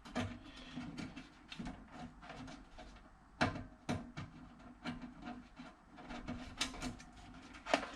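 Irregular clicks, taps and small knocks of hard plastic and metal parts being handled inside an old desktop PC case, with sharper knocks about three and a half seconds in and near the end.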